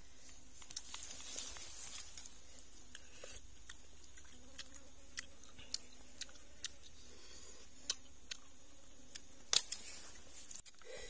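Grilled freshwater mussel shells being pried open and handled with a small utensil: scattered light clicks and scrapes at an irregular pace, the sharpest about nine and a half seconds in.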